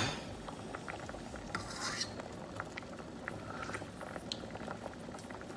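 A metal spoon stirring in a stainless steel pot of simmering mung bean soup: a sharp clink against the pot at the start and a brief scrape about two seconds in, then scattered light ticks from the simmering pot.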